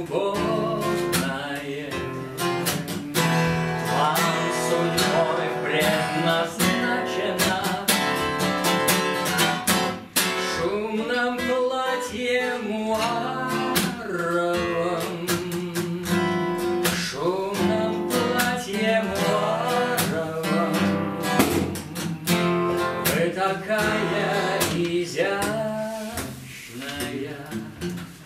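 A man singing a song to his own acoustic guitar, the steel-string guitar strummed and picked in a steady accompaniment.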